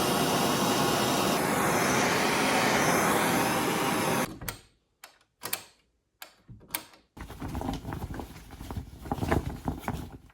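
Designed flamethrower sound effect built from household objects: a long, dense rushing blast for about four seconds that cuts off, then a few short separate bursts, then an uneven flickering crackle with louder peaks near the end.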